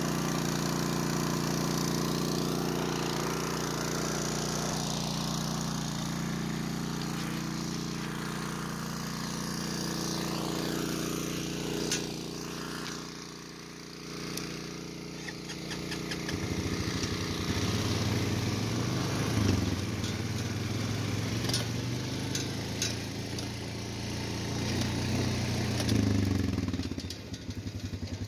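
Small gasoline engine of a Harbor Freight water pump running steadily at a constant speed. About halfway through it falls away, and a lower, uneven rumble takes over, with a few short clicks.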